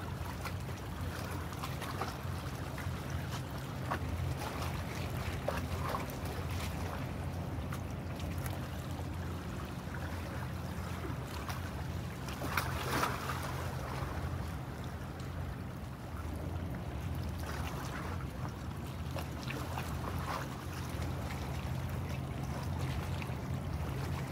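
Steady low drone of a ship's engine, with a hiss of wind and water over it and a brief louder rush about halfway through.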